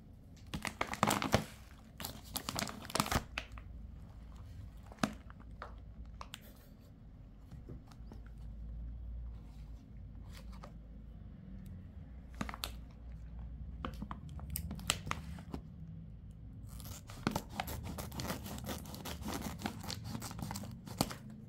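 A plastic pouch of rabbit pellets crinkling as it is handled, with crackly bursts near the start and scattered rustles. From about 17 s in, scissors cut through the top of the bag, with dense crinkling and snipping.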